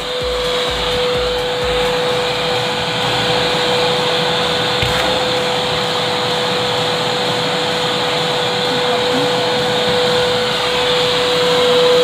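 AmazonBasics wet-and-dry canister vacuum cleaner running steadily: air rushes through the hose and wand over a steady motor whine.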